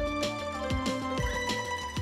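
Background music with a steady beat: drum hits in the low end under held chords.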